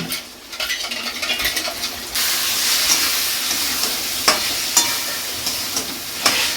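Masala of ginger, tomato and green-chilli paste with cumin and turmeric frying in a kadai while it is stirred, with a few sharp clicks of the spatula on the pan. About two seconds in the sizzling jumps louder and stays up.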